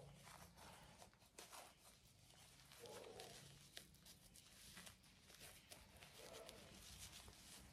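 Near silence, with faint rustling and light clicks from a towel being rubbed over a baby monkey, and two brief faint low sounds.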